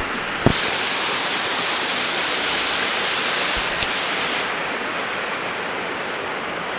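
Steady rush of a waterfall, hissier for the first few seconds, with a light knock about half a second in.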